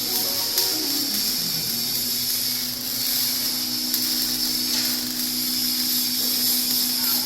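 A machine running steadily with a continuous hiss and a low hum that settles to one pitch about two seconds in.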